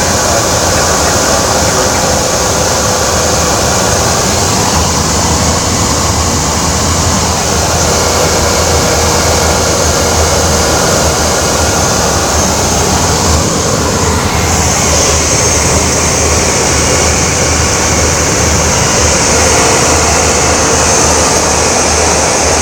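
Steady, loud cabin drone of a single-engine propeller plane's engine and propeller in cruising flight, with a constant low hum.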